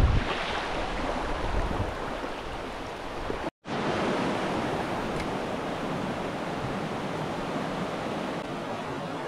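Mountain river water rushing steadily, with a low wind rumble on the microphone in the first couple of seconds. The sound breaks off for an instant about three and a half seconds in, then the rushing carries on unchanged.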